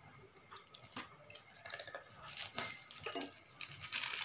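Eating sounds: instant noodles being slurped and chewed, with scattered small clicks. Near the end, a plastic packet rustles.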